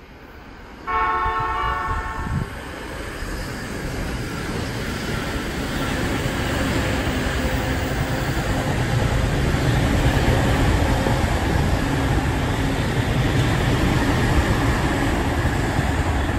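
Electric commuter train's horn sounds once for about a second and a half, a driver's answering toot to people waving. The train's running noise then builds and holds steady as it passes below.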